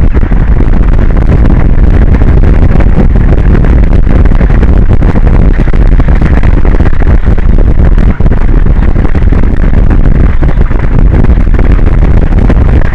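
Wind buffeting an exposed outdoor microphone on an offshore platform. It makes a loud, steady rumble heavy in the low end that never lets up, apart from one brief dip about eight seconds in.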